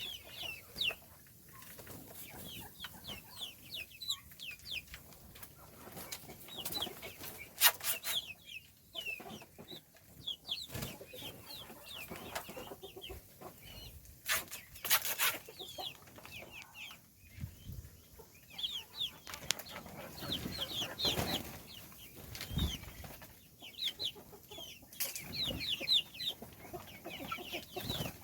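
Chicks cheeping continuously: many short, high peeps, each sliding down in pitch. A few sharp clicks are mixed in, the loudest about a third of the way in and about halfway.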